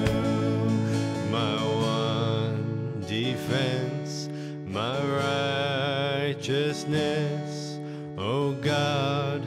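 Contemporary worship music from a praise band: acoustic guitar strumming under a sung melody, the held notes wavering slightly.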